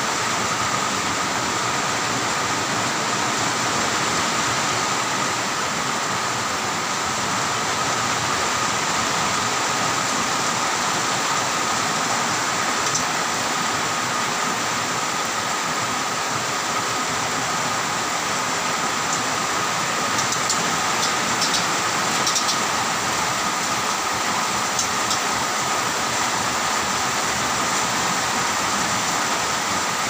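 Heavy rain falling steadily, an even, dense hiss at constant strength, with a few faint short high chirps in the last third.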